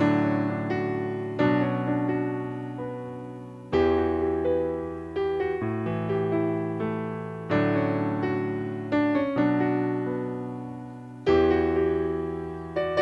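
Yamaha electronic keyboard played with a piano voice, in an instrumental break of a slow ballad: about eight chords, each struck and left to ring and fade before the next.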